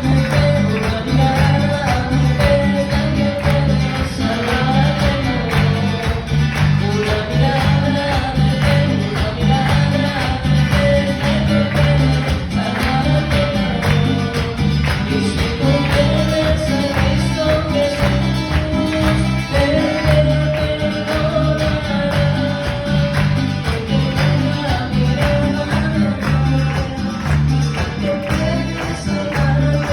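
A church music group playing an upbeat worship song: a steady pulsing bass and a busy tambourine under a melody line that rises and falls.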